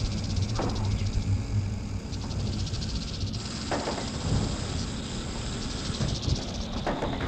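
Horror sound-effect ambience: a steady low rumble under a noisy haze, with a few short noisy swells breaking through.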